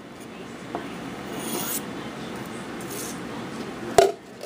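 Hands handling things on a paper-covered tabletop: faint rubbing, a brief scrape about a second and a half in, then a sharp knock about four seconds in.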